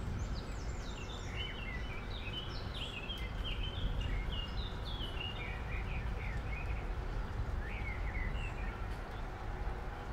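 Steady low background noise with a run of quick, high chirping calls over it that stops about nine seconds in.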